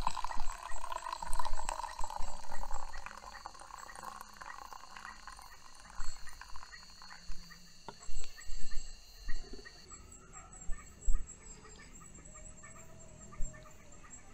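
Hot water poured from a titanium camping pot into an enamel mug, a splashing pour whose pitch slowly falls over the first three seconds. Steady high insect trilling runs underneath, and several short, loud sounds come between about six and eleven seconds in.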